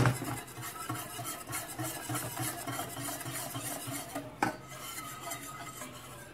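Wire whisk scraping around a stainless steel saucepan in rhythmic strokes, whisking a cornflour-thickened egg custard (pastry cream) as it thickens on the heat, with a sharper tap of the whisk against the pan about four and a half seconds in.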